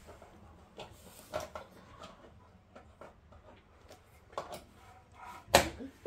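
Scattered light knocks and bumps on a wooden floor and furniture as a child moves about on hands and knees, with one louder thump about five and a half seconds in.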